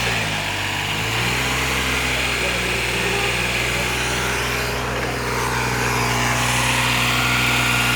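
Backhoe's diesel engine running steadily, its pitch dipping slightly in the first second and rising a little in the later seconds.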